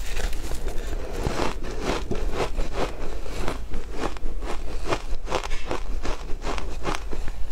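Mouthfuls of shaved ice being chewed, a rapid run of crisp crunches several a second, picked up close by a clip-on microphone.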